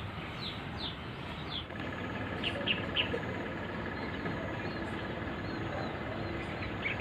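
Small birds chirping in short, quick, downward chirps scattered through a steady outdoor background, with a faint steady high tone joining about two seconds in.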